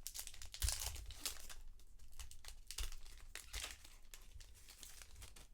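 Trading-card packaging crinkling and rustling as the cards are handled, in a run of short irregular crackles.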